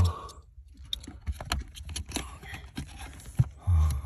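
Plastic wiring-harness connectors clicking, tapping and scraping as they are handled and pushed into the sockets of a car's fuse and relay module, a scattered run of light clicks. A short low hum sounds just after three and a half seconds in.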